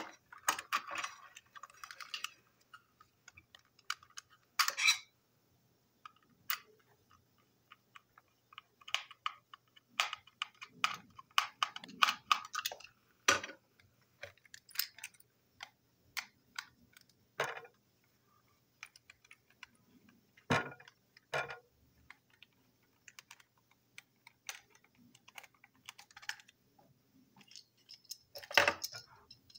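Parts of a toy Spencer locomotive clicking and knocking as they are handled and fitted back together: irregular taps and small clicks, with a couple of louder knocks near the end.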